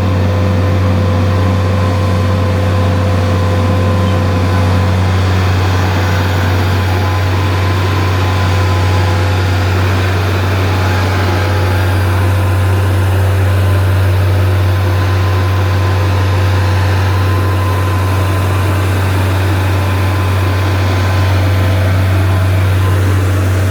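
Vermeer SC652 stump grinder's engine running at a steady speed: a loud, even low drone with a constant higher whine over it.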